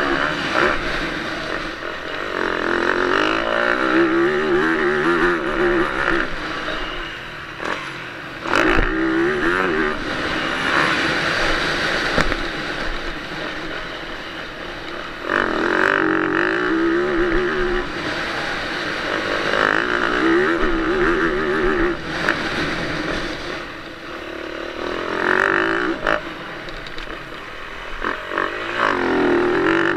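Yamaha YZ450F's single-cylinder four-stroke engine revving hard while the motocross bike is ridden on a dirt track: the pitch climbs and drops again and again as the rider opens the throttle every few seconds and shifts or backs off between surges.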